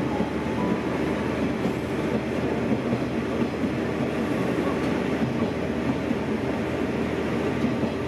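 Diesel train running at steady speed, heard from inside the passenger car: a continuous rumble of wheels on the rails with a low hum.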